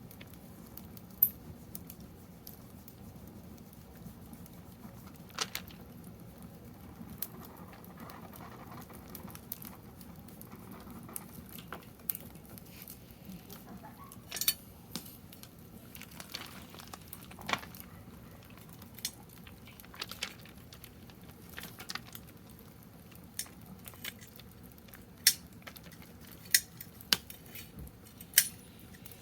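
Wood fire in a fire pit crackling, with irregular sharp pops and snaps over a low steady rumble.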